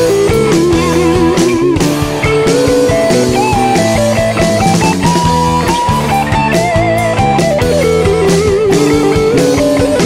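Rock band with a semi-hollow-body electric guitar playing a lead solo: held notes with wavering vibrato and bends over bass, chords and a steady drum beat.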